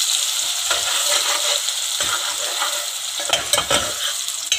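Sliced onions sizzling as they fry in hot oil in a metal pot, with a metal ladle stirring them and scraping against the pot several times, most busily about three to four seconds in.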